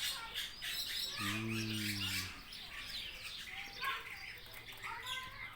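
A flock of aviary birds, parrots among them, chirping and calling all around in many short high notes. A short low hum comes about a second in.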